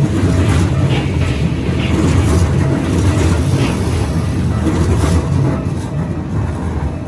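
Keikyu Line electric train passing over a level crossing: a steady low rumble of wheels on rail with sharp clacks at irregular intervals, easing slightly near the end.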